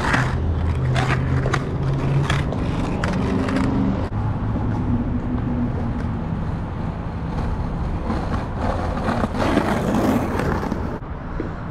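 Skateboard wheels rolling over rough pavement, with several sharp clacks of the board over the first few seconds. About nine seconds in there is a louder scraping stretch lasting a couple of seconds, as the board scrapes along a curb.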